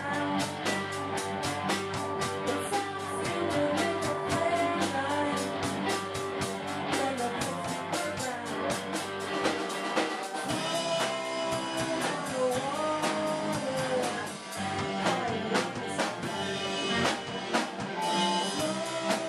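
A rock band playing live: electric guitar and drum kit, with a woman singing lead into a microphone.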